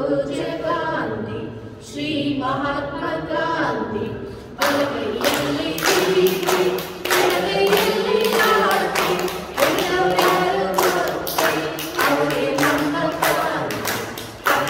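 A small group of teachers singing a wishing song together, led by a woman's voice at the microphone. From about four and a half seconds in, hands clap along in a steady rhythm.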